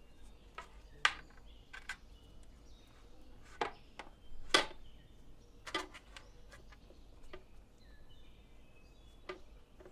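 Quiet handling sounds: a few soft taps and clicks scattered through, the loudest about halfway, with faint bird chirps in the background.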